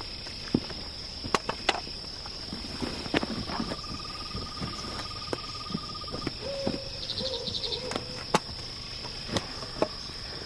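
Summer forest ambience: a steady high insect chirring throughout, with a pulsing trill for about two and a half seconds in the middle and a lower call just after it. Scattered sharp clicks and ticks break through now and then.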